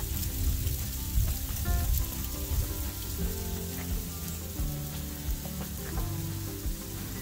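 Freezing rain falling steadily, an even sizzling hiss of ice rain, with faint background music underneath.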